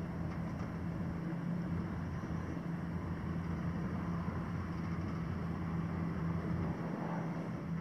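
A boat's engine running steadily under way, a constant hum over an even rush of wind and water noise.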